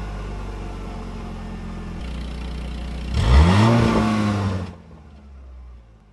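Airboat engine and propeller running steadily, then revving up loudly about three seconds in before the sound cuts off abruptly shortly after.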